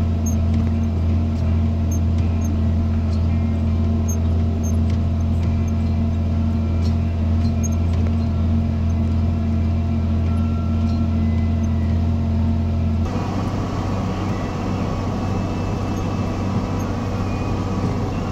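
John Deere tractor engine running steadily while the boom sprayer works. Its tone changes sharply about thirteen seconds in.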